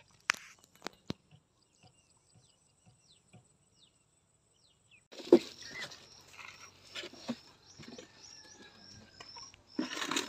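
A few sharp knocks and splashes with faint bird chirps, then about five seconds in a loud thump followed by rustling and handling noise, with short high bird chirps repeating and another burst of noise near the end.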